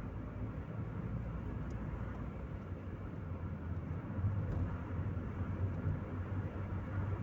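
Chevrolet Corsa Maxx driving, heard from inside the cabin: a steady low engine hum with tyre and road noise.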